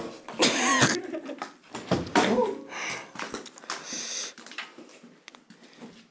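A person breathing hard close to the microphone: three rasping breaths about a second and a half apart, with small clicks and handling scuffs between them.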